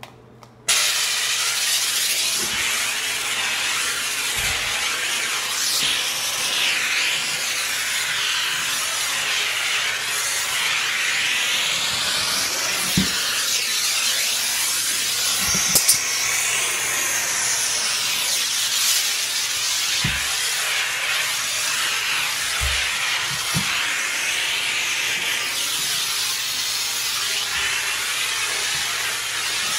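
Vapor steam cleaner spraying steam, a loud steady hiss that starts abruptly under a second in. A few light knocks sound under the hiss.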